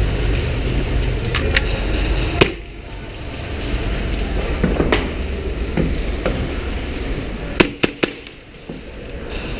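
Airsoft gunfire: scattered sharp snaps, a few single ones and then a quick cluster of three near the end. A steady low rumble underneath drops away about a quarter of the way in.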